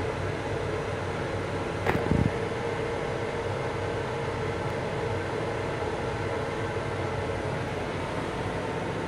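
Steady drone of a Long Island Rail Road M7 railcar heard from inside its small restroom: a continuous rush of running and ventilation noise with a steady hum. A short knock and a low thud come about two seconds in.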